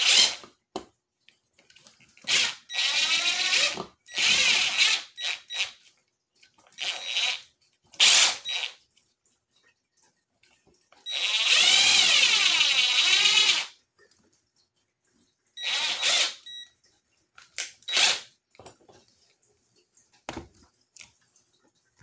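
Ridgid cordless drill driving screws to fix a ceiling fan mounting bracket to the ceiling electrical box. It runs in about seven short bursts, the longest about three seconds, and the motor's pitch rises and falls with the trigger.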